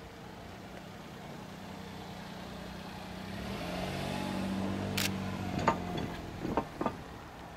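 Diesel engine of a KiHa 120 railcar running as it passes at a distance, its low hum swelling to a peak about four seconds in and then fading. A few sharp clacks come near the end.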